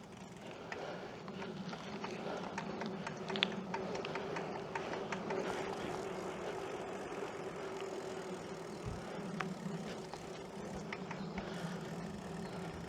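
Bicycle being ridden on a campground road, with scattered light ticks and rattles, over a steady low motor hum.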